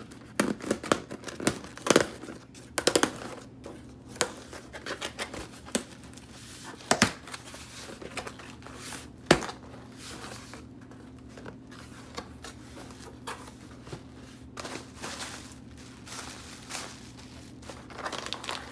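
Packing tape being picked at and ripped off a cardboard shipping box, then the flaps folded open, with scratching, tearing and cardboard rustling. A few sharp, louder rips come in the first half, then quieter rustling of cardboard and plastic wrap.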